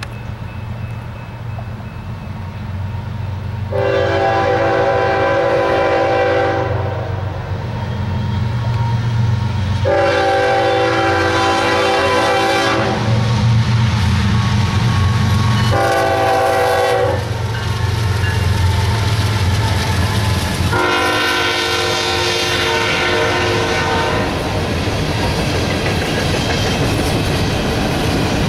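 Diesel locomotive passing close, blowing a multi-chime air horn in four blasts: long, long, short, long. That is the standard grade-crossing signal. Under the horn are a steady low engine rumble and wheel clatter on the rails.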